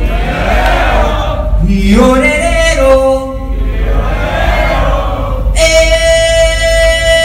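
Live concert call-and-response: a male singer through the PA sings a short wordless phrase that sweeps upward, and a crowd chants it back. The exchange repeats, and a long steady held note begins about five and a half seconds in.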